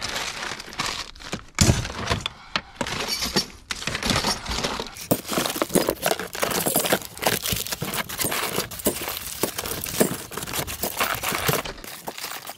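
Metal and plastic scrap clattering and rattling as it is dug through and pulled out of a dumpster by hand: a dense run of sharp clanks and knocks, busiest in the middle and thinning near the end.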